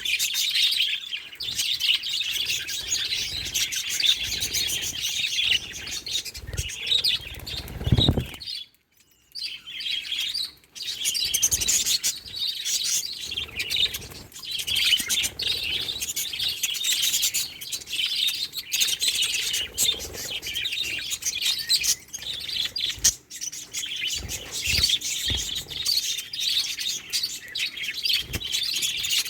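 Budgerigars chirping and chattering in a dense, continuous stream of quick high chirps, broken by a brief pause about nine seconds in.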